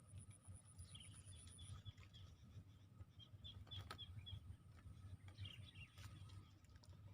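Near silence: faint outdoor ambience of short chirping calls in quick series, a thin steady high whine that stops partway through, and a low rumble.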